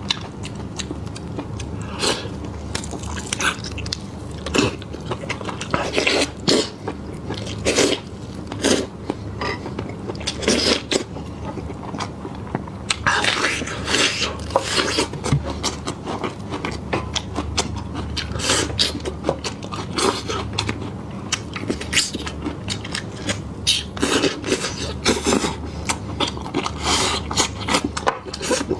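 Close-miked eating: biting and chewing meat, with irregular wet smacks and crunches several times a second.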